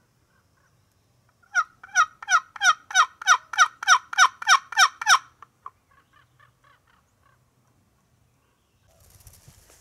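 A run of about a dozen loud turkey yelps, about three a second, each note dropping in pitch. A few faint, softer notes follow.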